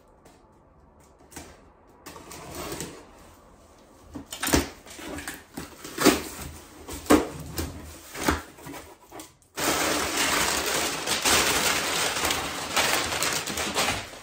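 Cardboard shipping box being opened: tape and flaps pulled with knocks and scrapes about once a second, then, about ten seconds in, sudden loud continuous crinkling as the packing paper is pulled out.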